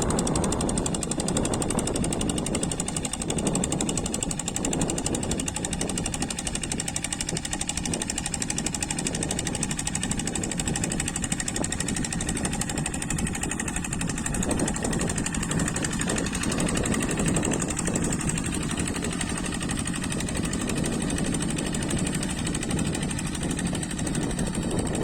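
Single-cylinder Kubota diesel engine of a hand tractor running steadily with a rapid, even chugging knock, working under load while leveling a wet rice paddy.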